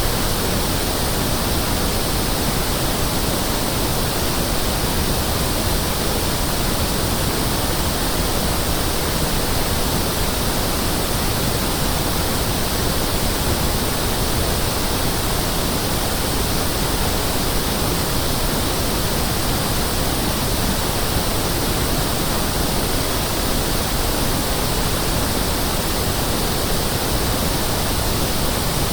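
Pink noise (1/f noise) test signal, with equal energy in every octave, as used to test speakers and rooms. It is a steady, even hiss that does not change in level.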